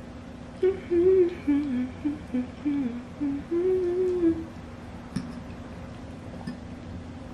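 A woman hums a short wavering tune with her mouth closed while chewing, for about four seconds, then a single light click follows.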